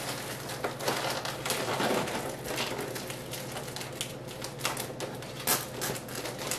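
Hands handling a foil balloon while rolling a short piece of 260 latex twisting balloon onto its tail: irregular crinkling, rubbing and small clicks of foil and rubber.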